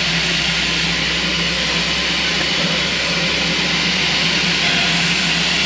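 Steam locomotive standing with steam up, hissing steadily, with a steady low hum underneath.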